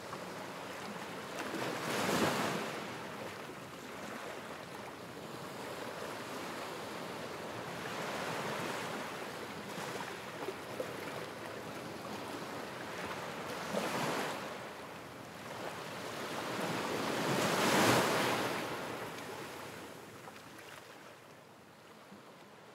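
Ocean surf: waves washing in and drawing back, swelling and ebbing every few seconds, the biggest swell late on, then fading out.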